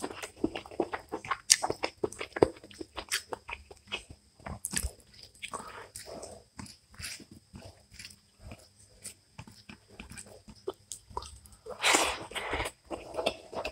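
Close-miked eating sounds: a run of small wet clicks and squelches as rice and curry are mixed by hand and chewed. A louder, longer burst comes near the end as a handful goes into the mouth.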